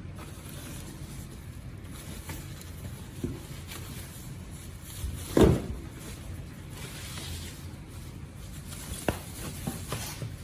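Vacuum cleaner parts and packaging being handled: a few light clicks and knocks over a low steady hum, with one louder thud about five seconds in.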